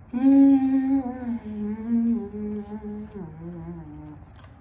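A woman humming with her mouth closed while eating: a few held notes that step down in pitch over about four seconds, loudest at the start.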